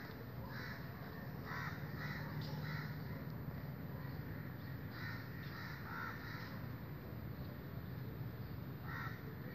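Crows cawing: clusters of short, repeated calls a few seconds apart, over a steady low background hum.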